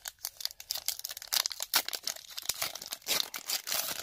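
Plastic trading-card pack wrapper crinkling as it is handled and torn open by hand, a dense run of crackles.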